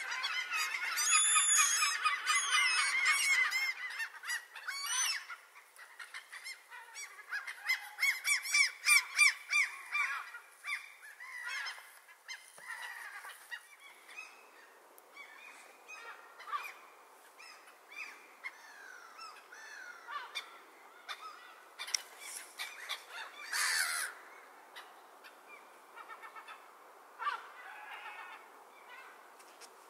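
A flock of black-headed gulls calling, many harsh overlapping calls at once. The calling is densest at the start and again about eight seconds in, then thins to scattered calls.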